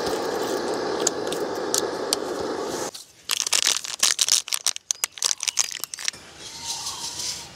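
Steady rushing hiss of a canister gas camp stove burner that cuts off abruptly about three seconds in. Then a few seconds of crinkling and tearing of plastic packaging handled at the table.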